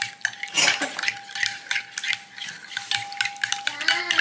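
Spoon beating batter in a glass bowl: quick repeated clinks of the spoon against the glass with wet stirring.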